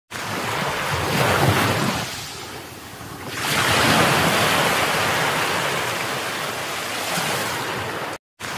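Ocean surf: a rushing wash of waves that swells, eases for about a second, then surges again and carries on steadily. It cuts off suddenly near the end.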